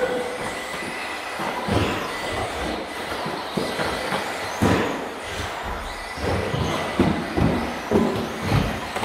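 Radio-controlled two-wheel-drive racing cars running on an indoor track: a steady whirring of motors and tyres, broken by repeated knocks as the cars land jumps or hit the barriers.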